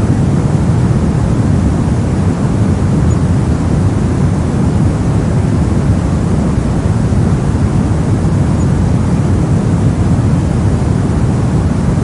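Steady brown noise: an even, deep rumbling hiss with most of its energy in the lows and little at the top.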